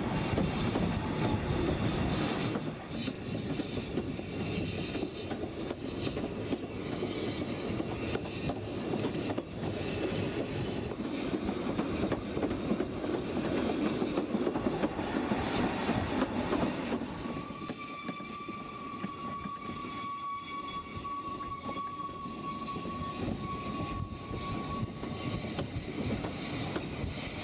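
Narrow-gauge steam train heard from inside a passenger carriage: the steady rumble and clatter of the wheels on the track. About two-thirds of the way in, the rumble eases and a long, steady, high-pitched tone starts. It holds for about eight seconds, then stops.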